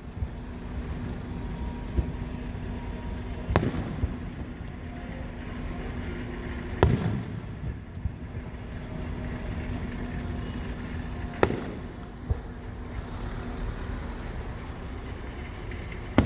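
Fireworks display: aerial shells bursting with three loud, sharp bangs a few seconds apart, each trailing off in a short echo, with fainter pops between, over a steady low hum.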